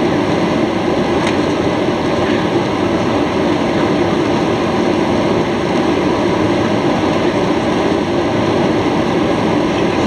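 Steady cabin noise inside a Boeing 737-800 climbing after takeoff: the even drone of its CFM56-7B turbofan engines and the rush of air past the fuselage, unbroken throughout.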